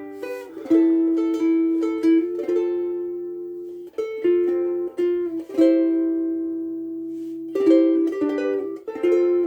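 Soprano ukulele played as a slow picked melody, single notes and small chords struck one after another and left to ring out, on strings the player finds a little too low in tension.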